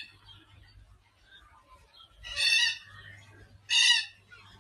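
Red-tailed black cockatoos calling: two loud calls, each about half a second long and about a second and a half apart, starting about two seconds in.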